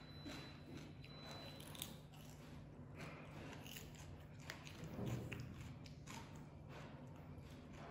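Faint small crisp clicks of a baby monkey nibbling and biting at a fresh cucumber held in a person's hand, over a steady low hum.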